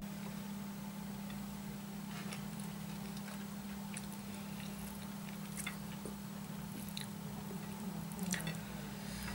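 Fingers mixing rice with fried chicken gizzard and purple cabbage on a plate, giving scattered soft, wet squishes and clicks over a steady low hum.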